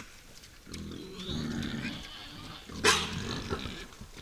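Wild boars grunting at close range, with one short, sharp call about three seconds in that is the loudest sound.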